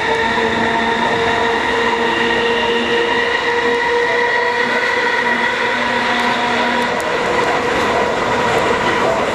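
Running sound of a KCR MLR electric multiple unit motor car: its traction motors give a steady whine of several tones over the rumble of the wheels on the track, holding an even speed. A lower tone in the whine drops out about seven seconds in.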